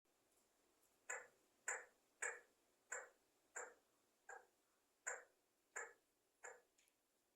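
Pet parrot giving about ten short, sharp calls in a steady series, roughly one every 0.7 seconds, starting about a second in.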